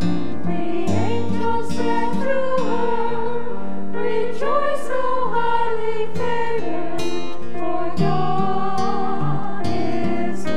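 Slow church music: acoustic guitar and keyboard accompaniment under a sustained melody line that wavers with vibrato and glides between notes.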